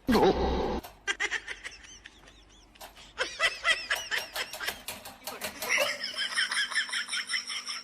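High-pitched laughter, repeated in quick bursts, opened by a short, loud sound that falls in pitch in the first second.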